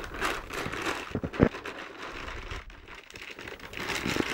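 Plastic packaging crinkling and rustling as cables and accessories are handled, with a few sharp knocks, the loudest about a second and a half in.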